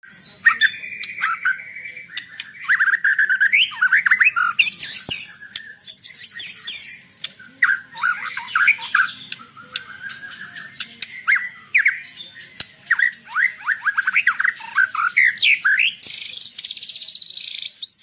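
White-rumped shama (murai batu) singing a fast, varied song of whistles, rising and falling chirps and harsh squawky notes. It ends in a dense, high rapid chatter in the last two seconds.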